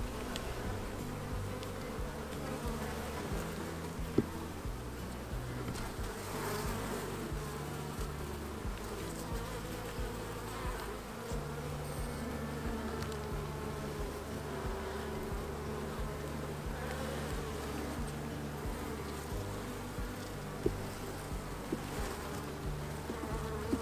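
Honey bees buzzing around an opened hive, a steady wavering hum, with a few sharp clicks, the loudest about four seconds in.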